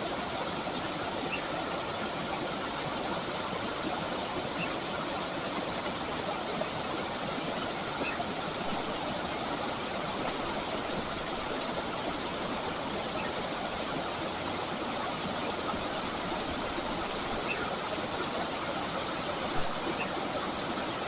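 Steady, even rushing noise with no pitch or rhythm, unchanging throughout.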